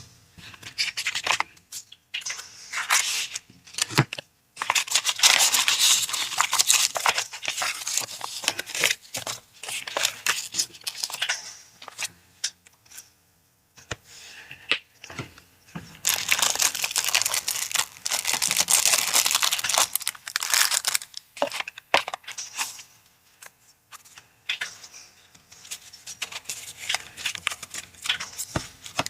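Packaging being unwrapped by hand, torn and crinkled in two long spells, with short rustles and sharp handling clicks between them.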